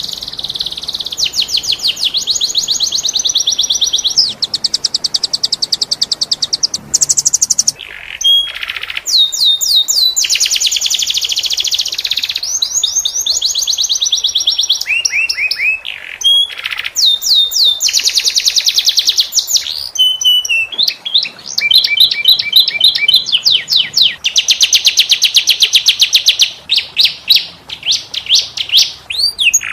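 Domestic canary singing continuously in long runs of fast, high-pitched trills and rolls, broken by brief pauses between phrases.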